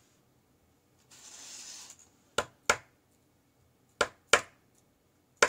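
Keso 2000S lock being tapped to free its pin-holding bar: three pairs of sharp metal taps about a second and a half apart, after a brief rustle of paper.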